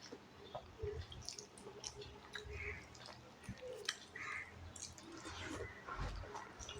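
Quiet, wet eating sounds of idli with sambar: soft chewing and squishing with small scattered clicks.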